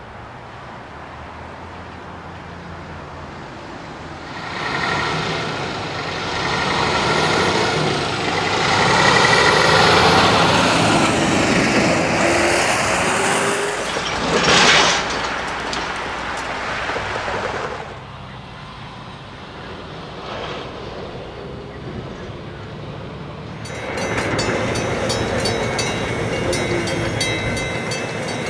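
Semi tractor-trailer passing close by: diesel engine and tyres build to a loud pass and fade, with a single sharp clunk about halfway through. Near the end a train passing a grade crossing takes over, with a rhythmic clatter of wheels on rail joints.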